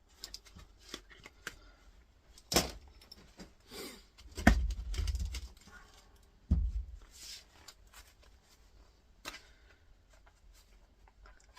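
Tool-handling noise: scattered clicks and rustles with a few sharp knocks, the loudest a low thud about four and a half seconds in, as an axe's safety guard is worked at to get it off the blade.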